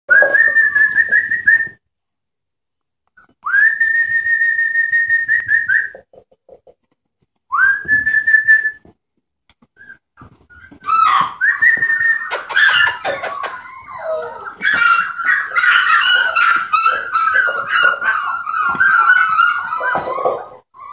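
Rhodesian ridgeback puppy whining in high-pitched cries. Three long, level whines come in the first half, then near-continuous wavering whining for the rest, with a few clicks along the way.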